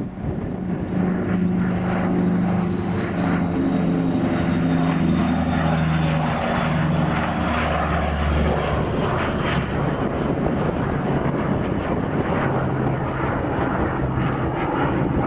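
Lockheed P-2V Neptune air tanker's propeller engines running as it flies past, the engine pitch falling as it goes by.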